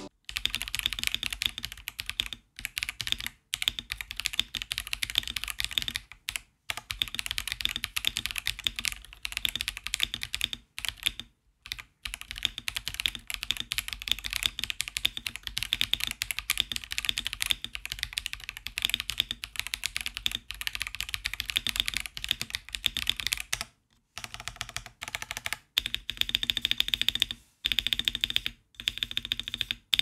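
Typing at normal speed on a mechanical keyboard with Akko V3 Cream Pro Blue tactile switches in a gasket-mounted polycarbonate plate, giving a soft, thocky key sound. Dense runs of key strokes with a few brief pauses, coming in shorter bursts near the end.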